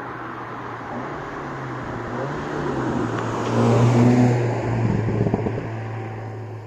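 SEAT León Cupra 290's turbocharged 2.0-litre four-cylinder on its stock exhaust with petrol particulate filter, its note swelling to a loud peak about four seconds in, with a few short crackles just after before it eases off.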